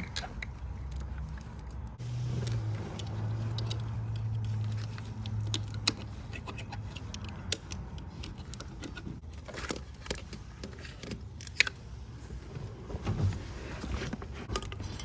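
Metal hand tools clinking and scraping against engine parts as bolts are worked loose, with scattered sharp clicks. A low steady hum comes in about two seconds in and stops about four seconds later.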